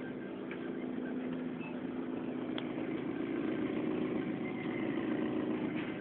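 Steady hum of supermarket freezer-case refrigeration machinery, with a single click about two and a half seconds in.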